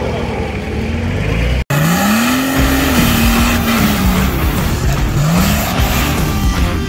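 Off-road 4x4 engines revving on a dry dirt track: the engine pitch climbs, holds, then falls, and climbs again near the end. The sound cuts out for a split second a little under two seconds in.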